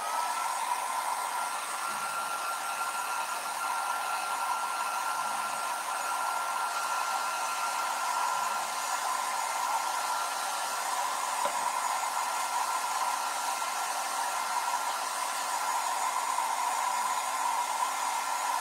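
Handheld hair dryer blowing steadily, drying wet chalk paste. Its motor whine rises and settles to a steady pitch just after it switches on.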